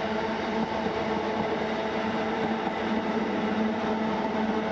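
Royal Mail Class 325 electric multiple unit passing at speed, a steady hum over continuous wheel-on-rail noise.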